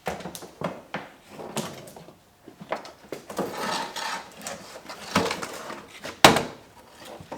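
Irregular clunks, taps and scraping of car trunk parts and trim being handled and pulled loose, with one sharp, loud knock about six seconds in.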